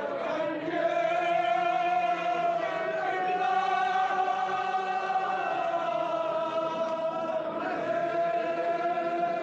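Kashmiri marsiya, a Shia mourning elegy, chanted by male voices in long drawn-out notes, each held for a few seconds before moving to the next.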